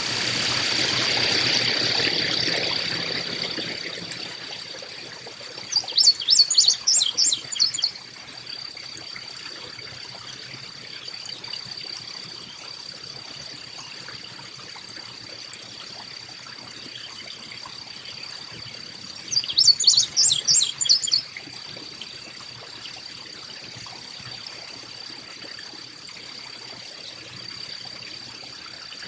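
Carolina chickadee calls: two short bursts of rapid, high chattering notes, one about six seconds in and another about twenty seconds in. Under them runs a steady high-pitched hum, and a rushing noise swells and fades in the first few seconds.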